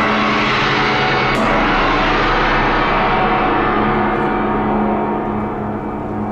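A gong ringing with a dense, sustained shimmer of tones, struck again about a second and a half in and more faintly around four seconds in, then starting to die away near the end.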